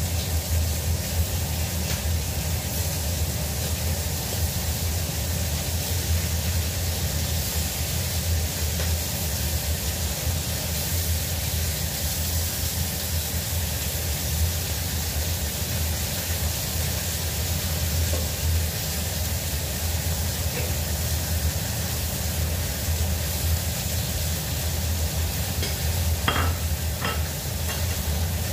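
Tofu and fish frying in a wok over a gas burner: steady sizzling with a low rush underneath, and a few short clicks near the end.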